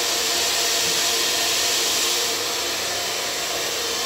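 Handheld hair dryer running steadily as it blows through long hair: an even rushing hiss with a faint motor whine underneath.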